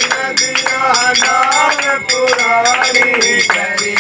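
Men singing a devotional bhajan in a group, with hand-clapping keeping a quick steady beat of several claps a second.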